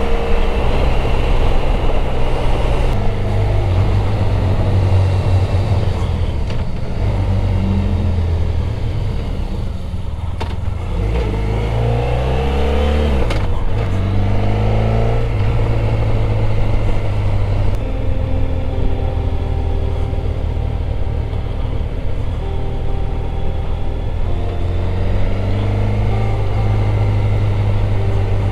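Motorcycle engine running while riding, heard from on the bike. Its note falls and then rises again around the middle, as the engine slows and picks up speed.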